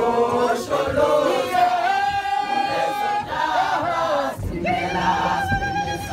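A crowd of people singing together in chorus, with a long held note near the middle.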